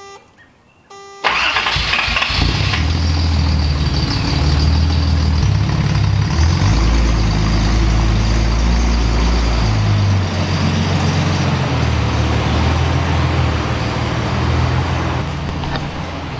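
A Datsun Z car's engine is started about a second in, after a few short electronic beeps, and catches at once. It then idles loudly and unevenly, its speed shifting up and down.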